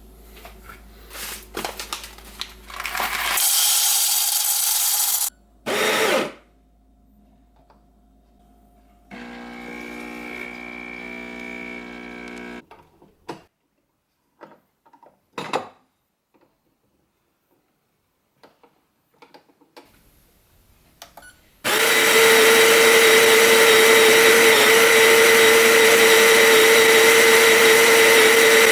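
Scattered clicks and knocks with a few short bursts of noise, then a Baratza Sette 270 burr grinder's motor starts about two-thirds of the way in and runs loud and steady with a high whine, grinding coffee beans.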